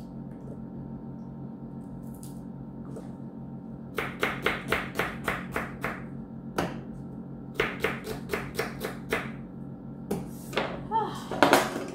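Kitchen knife chopping onion on a plastic cutting board: two runs of quick, even strokes, about six a second, starting about four seconds in and again a couple of seconds later, then a few scattered, louder knocks near the end. A steady low hum runs underneath.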